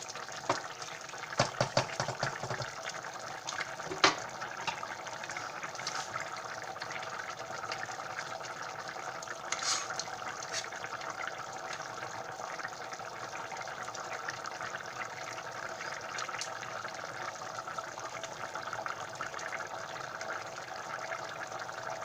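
Pot of beef goulash simmering: a steady bubbling hiss, with a few sharp knocks in the first few seconds, the loudest about four seconds in.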